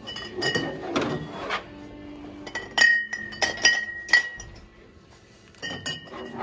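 Glass beer bottles clinking against each other and the metal shopping cart as they are loaded in, in a series of sharp knocks that ring briefly. Music plays underneath.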